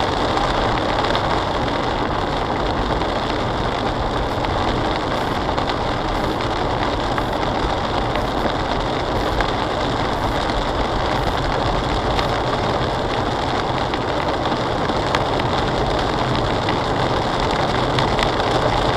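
Steady in-cabin road noise of a Jaguar car driving at about 35 mph in heavy rain: tyres on the wet road and rain on the car, with the engine running underneath.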